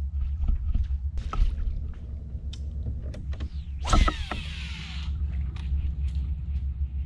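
A fishing cast about four seconds in: a short whoosh and a whir of line paying off the reel, falling in pitch as the lure flies. Small clicks and knocks come and go over a steady low rumble.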